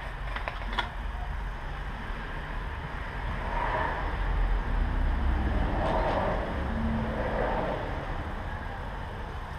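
A road vehicle going by: a low rumble that swells through the middle and fades again. Near the start there are a few light clicks of a small cardboard box being handled.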